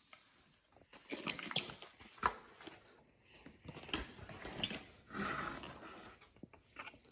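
Irregular rustling and crinkling with scattered small clicks, from food and its packaging being handled while someone eats.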